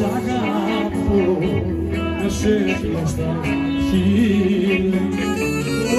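Live folk music: voices singing an ornamented, wavering melody over a steady low drone, with a frame drum beating time.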